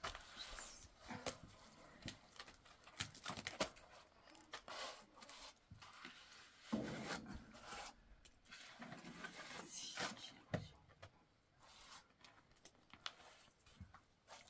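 Wet cement mortar being scooped from a plastic basin and smeared onto a cinder-block wall: faint, irregular rasping scrapes, a few louder than the rest.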